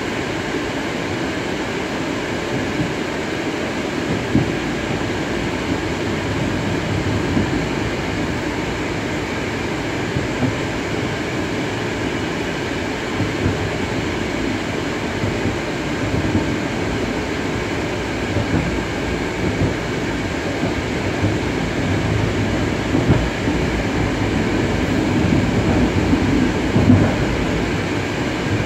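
Cabin running noise of a Moscow metro 81-765.2 'Moskva' car under way: a steady rumble of wheels on rail with a few steady high tones over it and occasional knocks, growing somewhat louder near the end.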